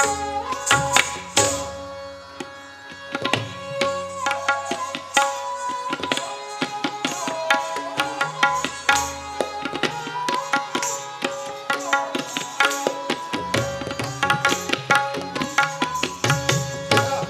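Live Kathak accompaniment: tabla playing a fast rhythmic pattern under a repeating sustained melody (lehra), with the jingling of the dancers' ghungroo ankle bells as they stamp and step.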